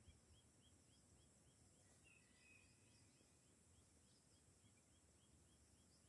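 Faint outdoor ambience: a high chirp repeated steadily about three times a second, and a brief whistled bird call about two seconds in.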